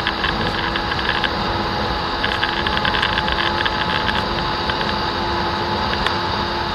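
RKS Titanic 150 S motorcycle's 150 cc engine running flat out in fifth gear at top speed, about 130 km/h: a steady, unchanging drone. Wind rushes and crackles over the microphone, coming and going.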